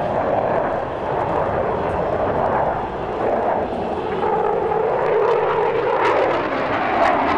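Steady jet noise from a JASDF F-15J fighter's twin turbofan engines as it flies a tight, banking display pass, growing a little louder past the halfway point as the jet comes nearer.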